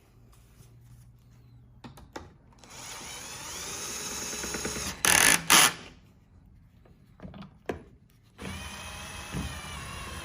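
Cordless power drill driving screws into the chair's frame in two runs, with two loud sharp bursts as the first screw seats about halfway through. Between the runs there are a few light clicks of handling.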